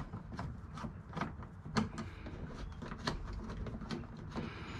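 Irregular small clicks and clinks of hand tools working on a snowblower, with screws being undone by hand and metal parts handled.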